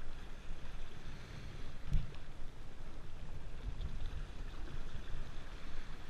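Steady rush of flowing river water with wind buffeting the microphone, and one short low thump about two seconds in.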